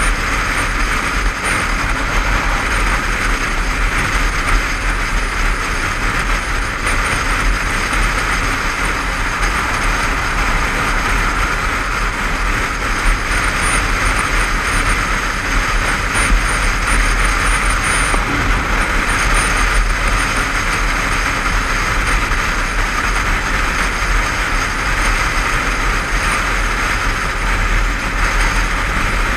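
Motorcycle cruising steadily at dual-carriageway speed, heard from the rider's position: a constant rush of wind and road noise over the mic with the engine's drone underneath, without pause or change.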